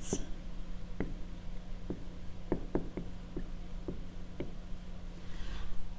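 Dry-erase marker writing on a whiteboard: a string of light taps and clicks as the letters are stroked out, over a steady low hum.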